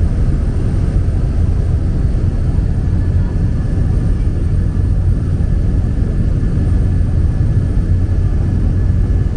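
Small propeller plane's engine and propeller droning steadily inside the cabin in cruising flight, a loud, even, low-pitched noise.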